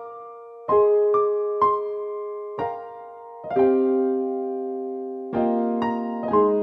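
Slow, gentle background piano music: single notes and soft chords struck every second or so, each left to ring and fade, with a lower chord entering about three and a half seconds in.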